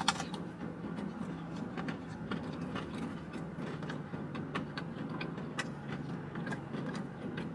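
Close-up chewing of crispy pizza: small wet clicks and crunches from the mouth, irregular and scattered, over a steady low hum inside the car cabin.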